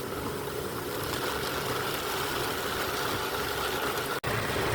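A vehicle's engine running steadily with road noise, briefly cutting out about four seconds in.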